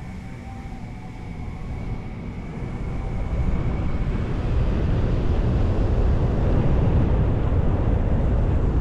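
Moving car's road and wind rumble, a steady noisy sound that grows louder about three seconds in. A faint steady high tone fades out partway through.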